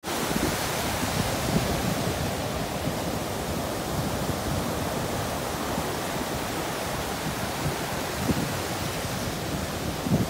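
Ocean surf: waves breaking and foam washing up the beach in a steady rush, with gusts of wind rumbling on the microphone.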